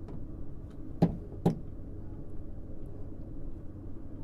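Two sharp knocks about half a second apart, about a second in, from handling the access panel of a VAV terminal box as it is opened, over a steady low hum.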